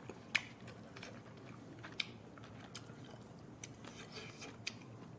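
Faint eating sounds, with people chewing and a few light clicks of a plastic spoon and chopsticks against plastic takeout containers.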